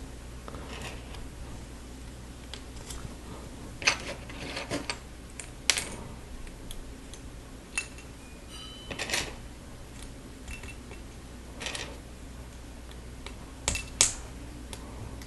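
Lego bricks and small plastic pieces clicking and rattling as they are handled, sorted and pressed together, with scattered sharper clicks and a faint steady hum beneath.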